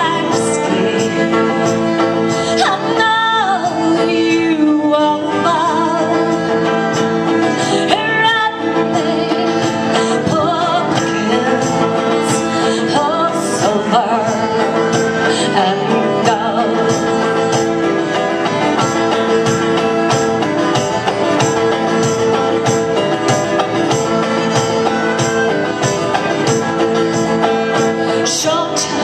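Live country-style band music: a fiddle bowing a melody over a strummed guitar with a steady rhythm.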